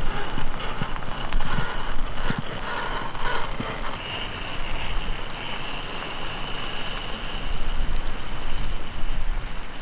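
Traxxas TRX-4 Sport RC crawler with a HobbyWing XeRun sensored brushless motor driving over a wet, stony trail: tyres crunching and knocking on stones and grit. A steady high motor whine comes in about four seconds in.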